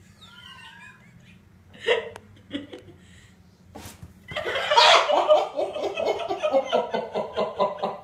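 A person laughing hard in quick, repeated bursts, starting about four seconds in and running for about four seconds, falling in pitch as it goes. A couple of short sharp sounds come just before it.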